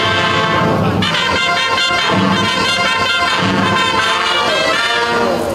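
Brass band playing music with held notes throughout.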